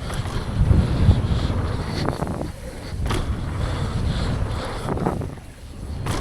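Wind rushing over the camera microphone and tyres rumbling on dirt as a downhill mountain bike descends at speed, with a few sharp knocks from the bike over the bumps.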